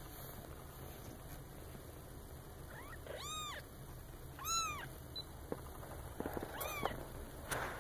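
Very young Maine Coon kittens mewing: three short, high mews, each rising and then falling in pitch, about three, four and a half, and nearly seven seconds in.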